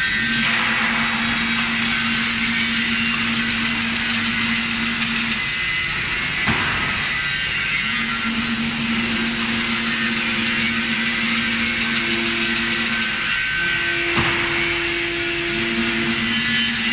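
Automatic chain-link fence weaving machine running, a steady mechanical hiss throughout. A motor hum starts and stops in stretches of about five seconds. A sharp clack comes twice, about eight seconds apart.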